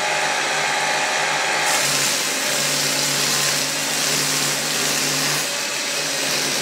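Parkside benchtop drill press running steadily, spinning a bristle-backed flap sanding wheel. About two seconds in a loud, even hiss sets in as a wooden workpiece is pressed against the wheel's fine 400-grit abrasive strips.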